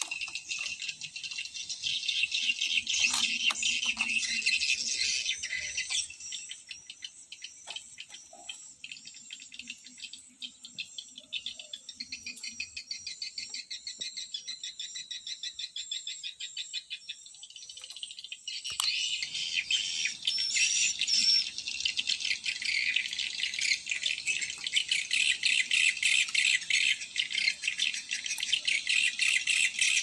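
Dense, high-pitched insect chorus with a fast pulsing rhythm. It thins out from about six seconds in, then comes back full from about nineteen seconds.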